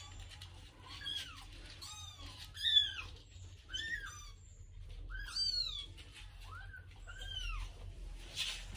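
Newborn kittens mewing while the mother cat licks them: about eight thin, high cries, each rising then falling in pitch, the loudest about a third of the way in.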